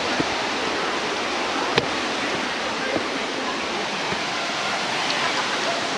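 Steady rushing of falling water from a waterfall. A single sharp click comes just under two seconds in.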